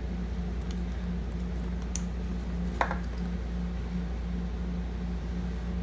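Steady low hum with a faint pulsing tone, and two light clicks about two and three seconds in, from handling the knife bag.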